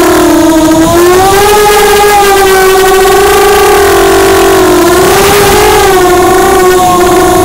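Brushless motors and propellers of a Vortex 285 FPV racing quadcopter whining loudly, heard from on board, the pitch gliding gently up and down with the throttle.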